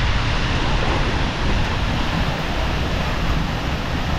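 Steady rushing roar of a large waterfall close by, with gusts of its spray-laden breeze buffeting the microphone.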